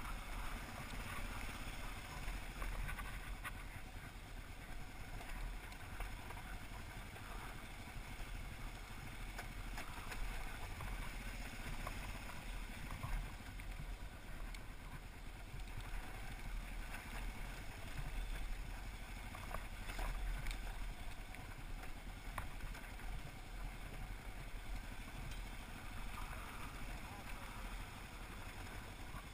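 Kawasaki KLR dual-sport motorcycle's single-cylinder engine running steadily as it rides over a rocky dirt track, mixed with wind noise on the helmet-mounted microphone and scattered small clicks from stones and the bike rattling.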